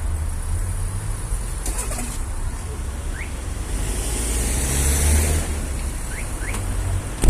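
Low road-traffic rumble as a vehicle goes by, swelling to its loudest about five seconds in. A faint click comes near two seconds, and a sharp knock at the very end.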